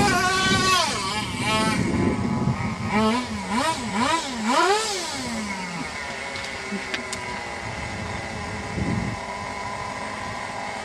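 Radio-controlled car's motor revving, its pitch swooping up and down several times over the first six seconds, then settling to a quieter, steadier sound.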